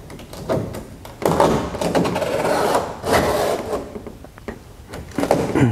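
Utility knife slicing through the taut fabric covering of a 1949 Piper PA-16 Clipper wing, a rasping rip. Two long cuts come about a second in and about three seconds in, with shorter strokes around them.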